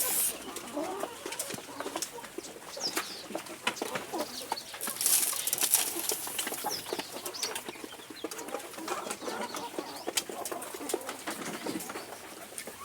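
Young chickens feeding: short chirps and calls over many small, irregular taps of beaks pecking at feed.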